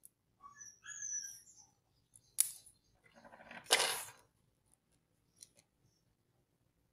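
Amber insulating tape peeled off its roll with short squeaky streaks, a sharp click about two and a half seconds in, then a second-long rasping tear, followed by a couple of small ticks as the tape is handled and pressed down.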